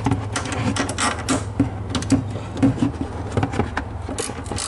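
Hand socket ratchet clicking irregularly as the top-mount bolts of a rear coilover are run down, over a steady low hum.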